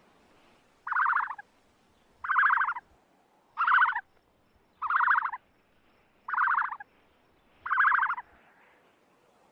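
An animal giving six short, harsh, buzzy calls, one about every second and a half.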